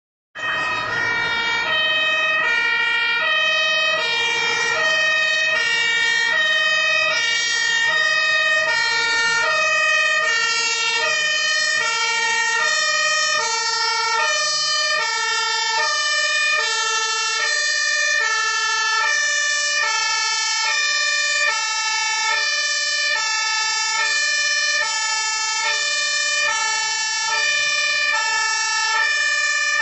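Fire engine's two-tone siren sounding, switching steadily back and forth between a high and a low pitch, with a steady high tone held underneath.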